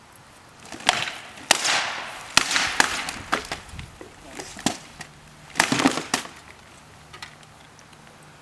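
Rattan swords striking wooden shields and armour: a rapid flurry of sharp wooden cracks and knocks starting about a second in, then a second flurry about five seconds in.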